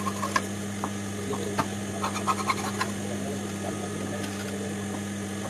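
Large tailor's shears cutting through cotton lining cloth: a string of short, crisp snips over the first three seconds, over a steady low electrical hum.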